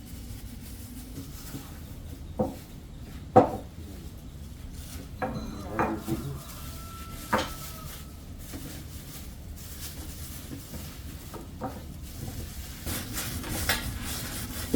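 Kitchen utensils clinking and knocking against cookware: scattered sharp knocks a second or more apart, one of them ringing briefly about seven seconds in.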